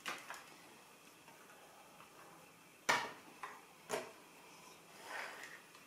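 Plastic Lego bricks clicking and snapping together as pieces are pressed onto a model: a few sharp clicks, the loudest about three seconds in, followed near the end by a softer rustle of handled pieces.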